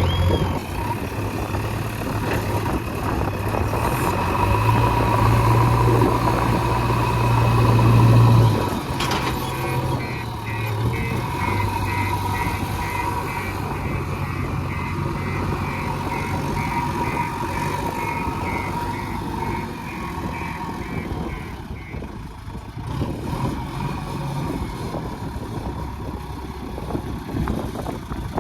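JCB 3DX backhoe loader's diesel engine running under working load, revving up and getting louder from about four seconds in, then dropping back to a steady run at about eight seconds. A rapid, evenly repeating high-pitched pulsing comes in about ten seconds in and returns near the end.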